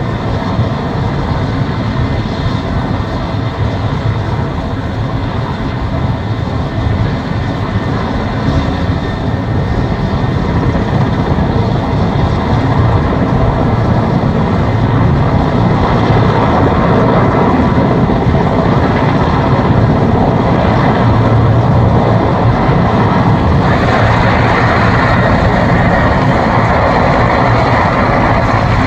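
Mil Mi-17 helicopter's twin turboshaft engines and rotor running, a steady loud machine noise that grows louder in the second half and shifts in tone near the end.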